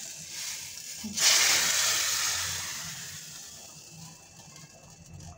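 Hot tadka of desi ghee, ginger, green chillies and red chilli powder poured into the simmering rajma curry: a sudden loud sizzle about a second in that fades away over the next few seconds.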